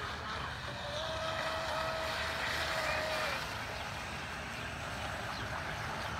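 Pro Boat Stiletto 29 brushless RC catamaran speeding across the water: a high, steady electric motor whine comes in about a second in and fades out around halfway, over a steady hiss.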